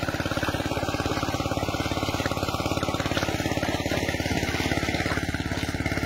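A small engine running steadily with a fast, even chugging beat that does not change.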